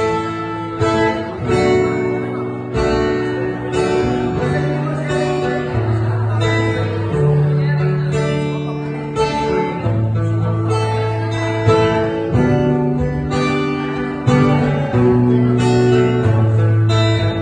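Acoustic guitar strummed live, with chords about once a second and the notes changing every second or two.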